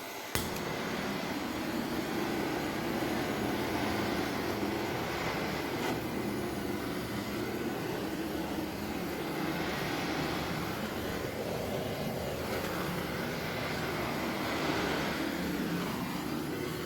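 An electric power tool running steadily with a continuous rushing whir, cutting in sharply just after the start.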